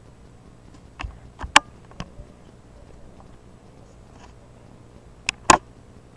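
Sharp clicks and taps of handling noise over a low steady hum: a cluster between about one and two seconds in, and a louder pair about five seconds in.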